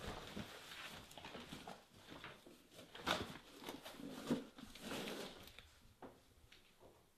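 Clothing rustling with small knocks and clicks as someone rummages through hanging coats in a closet, busiest for about five seconds, then dying down to a few faint clicks.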